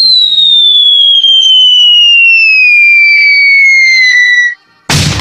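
A falling-whistle sound effect: one clear whistling tone gliding slowly and steadily down in pitch for about four and a half seconds, then cutting off. After a brief gap, a loud noisy burst starts just before the end.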